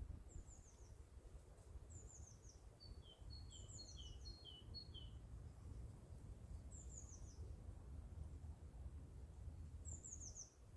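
Woodland birdsong: a small bird repeats short, high, quickly falling phrases about five times, while another gives a run of five two-note calls a few seconds in. A faint low rumble lies beneath.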